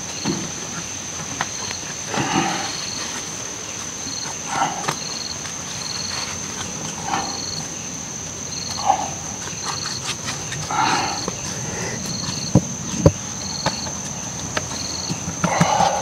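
Forest ambience: a steady high insect drone with short chirps repeating about once a second, and a lower animal call that comes back every two seconds or so. A few light knocks sound near the end.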